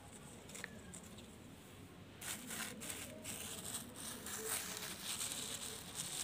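Thin plastic bag crinkling and rustling as a hand digs into the soil inside it, starting about two seconds in.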